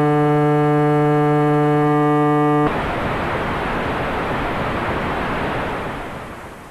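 A steady electronic buzzing tone, then about two and a half seconds in an abrupt switch to loud static hiss that fades away near the end: a broadcast signal being disrupted.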